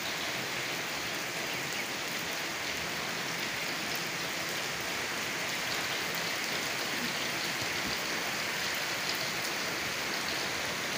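Light rain falling steadily, an even hiss without breaks: a shower just beginning.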